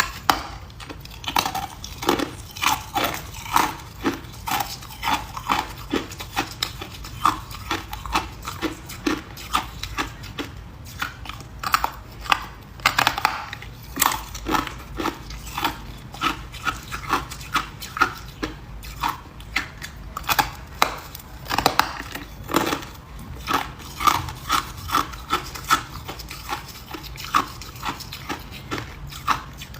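A person chewing ice, hard crunches of ice breaking between the teeth coming in quick succession, about one to two a second.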